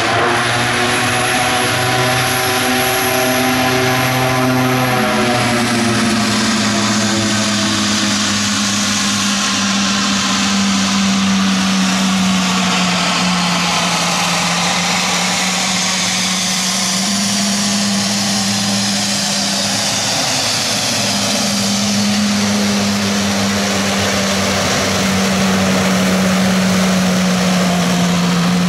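Honeywell TPE331-12 turboprop engine and propeller of an Antonov An-2 conversion running at ground idle while the plane taxis: a steady propeller drone over a thin, high turbine whine. About five seconds in, the drone drops slightly in pitch and the whine fades away.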